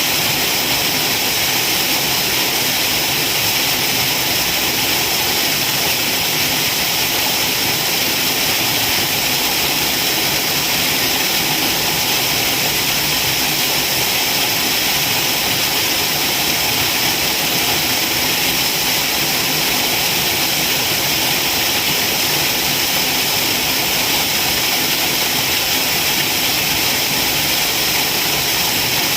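Waterfall: a steady, unbroken rush of falling water, with most of its hiss in the upper range.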